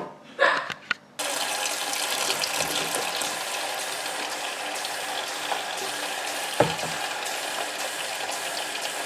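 Kitchen tap running steadily, filling the air fryer basket with water to soak it; the water starts about a second in. One short knock partway through.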